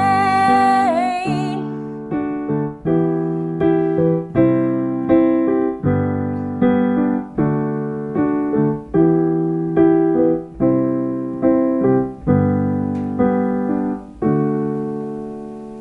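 Piano chords played on a keyboard, struck steadily about every three-quarters of a second and ringing between strikes, the last chord left to die away near the end. A held sung note fades out in the first second and a half.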